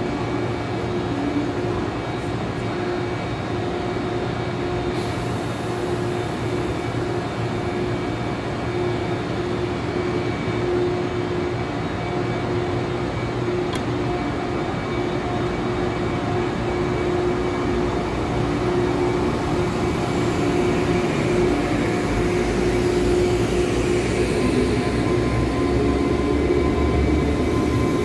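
Taiwan Railways EMU1200 electric multiple unit standing at the platform with a steady electrical hum, then pulling away: a low rumble swells and a higher whine joins in near the end as the train gets moving.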